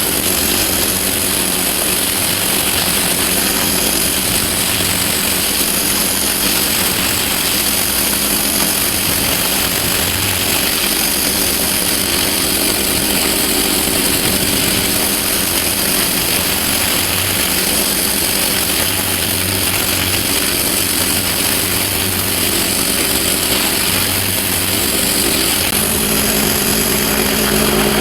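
Pressure washer running steadily with its high-pressure water jet hissing onto driveway paving; the machine's note grows stronger near the end.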